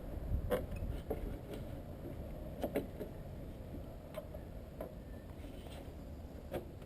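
Scattered light clicks and taps from handling the car's plastic bumper trim and its clips, about seven spread irregularly over a steady low rumble.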